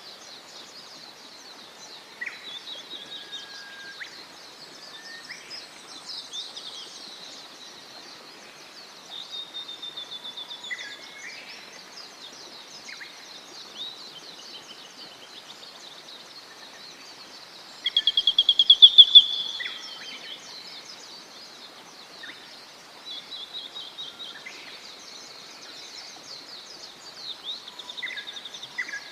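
Several wild birds calling and singing in the bush over a faint steady hiss. Short chirps and whistled phrases come and go throughout, and one loud, rapid run of repeated notes comes a little past the middle.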